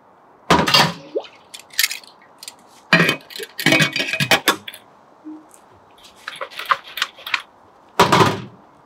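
Metal clinks and clatter of a stainless steel mini keg's lid being fitted and its wire bail clamps snapped shut, with an electric kettle set down on a steel table about half a second in. Several separate knocks, the loudest at the start and near the end.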